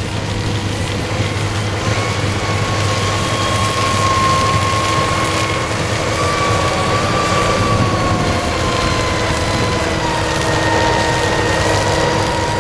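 Claas Jaguar forage harvester and tractor running together while chopping and blowing maize into a silage wagon: a steady, loud machine drone with a high whine over it that drifts slightly in pitch.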